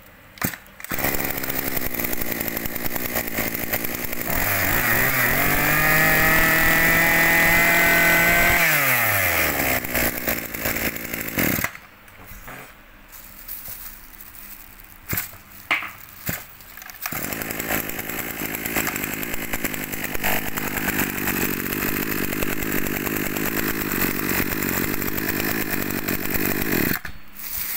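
Maruyama 26cc two-stroke brush cutter engine running, revved up about four seconds in, held high for a few seconds, then let back down. About twelve seconds in it drops off, with a few sharp sounds. It then runs steadily again, with a crisp exhaust note.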